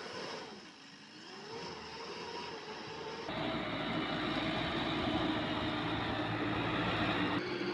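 Heavy machinery engine running. Its pitch dips and recovers about a second in. About three seconds in the sound cuts abruptly to a louder, steady engine note.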